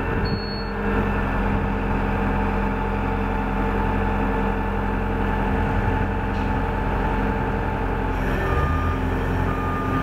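1999 SkyTrak 10054 telehandler's diesel engine running steadily while its boom is raised. A beeper sounds in short repeated tones starting near the end.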